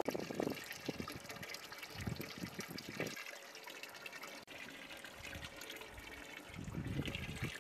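Water from a hose pouring into a large aluminium pot already part full, splashing and trickling; it dips quieter for a few seconds in the middle.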